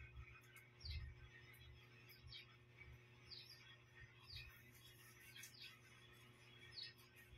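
Faint, short, high bird chirps, each sweeping downward, repeated irregularly roughly once a second over a low steady hum.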